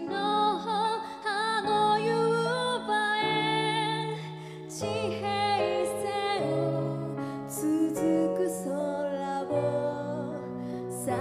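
A woman singing a slow, tender ballad live, her voice wavering and gliding on held notes. She is accompanied by acoustic guitar and piano or keyboard.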